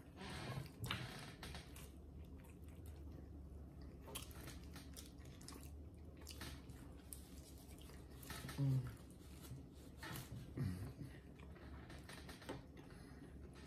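Faint chewing, with small mouth clicks and smacks, from two people eating Totino's frozen pizza. Two brief low voice sounds come in the second half.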